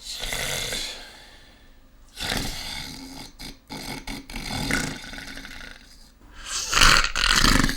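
A sleeper snoring heavily: several rough, rasping snores one after another, each about a second long with short pauses between. This is the kind of snoring that goes with sleep apnea.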